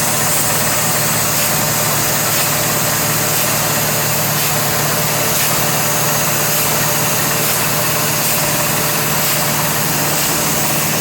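Water-well drilling rig running steadily and loudly, an engine hum under a strong hiss, with a faint knock about once a second.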